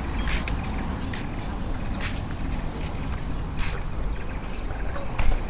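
Steady low rumble of a motorcycle ride, with scattered sharp clicks and a run of short, high chirps repeating every fraction of a second.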